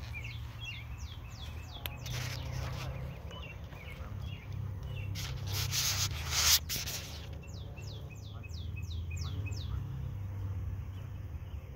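A bird sings two short runs of quick falling whistled notes, one near the start and one past the middle. Over a steady low rumble, there is close rubbing and rustling, loudest just past the middle.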